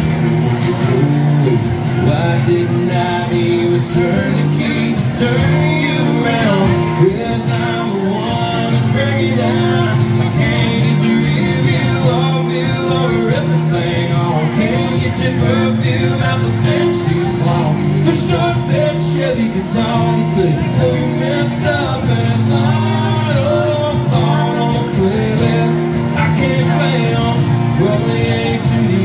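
Live acoustic country song: a man singing lead while strumming an acoustic guitar, with a second acoustic guitar playing along.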